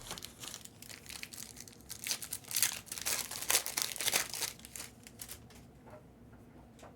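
Crinkling and tearing of a foil trading-card pack wrapper being ripped open and handled, loudest in the middle and dying away about five seconds in.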